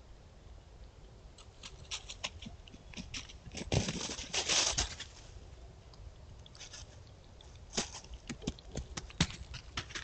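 Hare moving over dry leaf litter: scattered light crackling footfalls, with a louder rustling burst about four seconds in and another run of footfall clicks in the second half.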